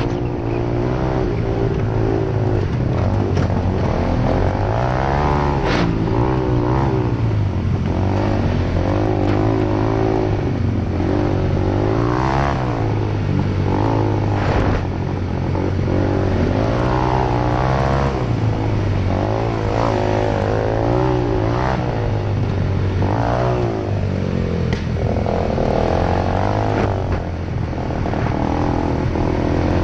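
Single-cylinder four-stroke ATV engine running steadily while riding, its pitch rising and falling with the throttle. Scattered knocks and rattles come from the machine bouncing over the rough trail.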